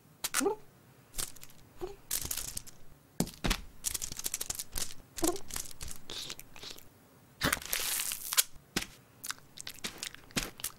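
Sticky tape being pulled, torn and peeled in a run of short crackling tears, with longer stretches of crinkling around the middle and near the end. A few brief cat-like vocal sounds come between them.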